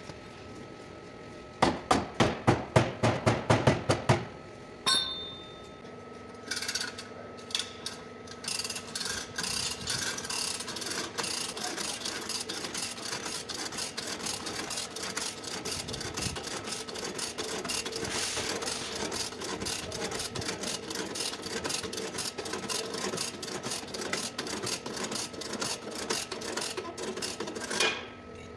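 Lever chain hoist ratcheting as it is pumped to pull out a crushed car body panel. About two seconds in comes a quick run of about ten loud clacks; from about six seconds in there is steady, rapid clicking until shortly before the end.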